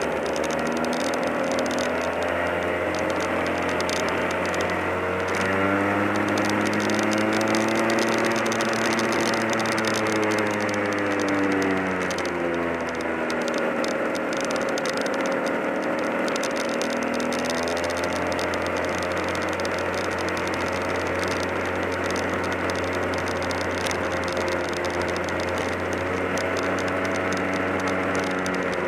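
Easykart junior kart's two-stroke engine running hard on track, its pitch climbing on the straights and falling back as it slows for the corners, several times over.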